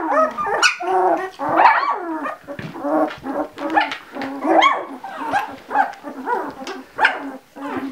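Ten-day-old Labradoodle puppy whining and squealing: a steady run of short cries that rise and fall in pitch, about two a second.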